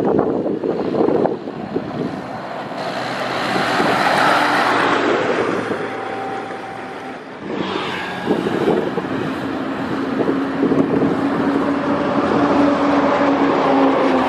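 Highway traffic passing close by: an MSRTC bus drives up and past, its noise swelling to a peak about four seconds in. After a dip about halfway through, a motorcycle and other traffic go by with a steady engine hum.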